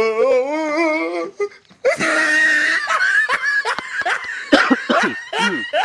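A man's voice holds a sung note with a wavering pitch for about a second. After a short break, laughter follows in choppy, breathy bursts.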